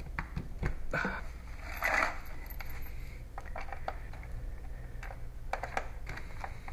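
A USB charger and its cable being handled and plugged in: a string of small plastic and metal clicks and clinks, with a louder brief scrape about two seconds in.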